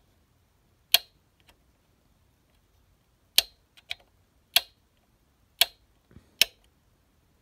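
DIP switches on a fire alarm unit being flipped by hand, giving about six sharp, separate clicks spaced roughly a second apart.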